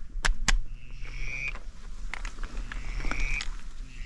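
Three drawn-out duck calls, each under a second long and about a second apart, in a duck-hunting spread with mallards working the decoys. Two sharp clicks come just before the first call.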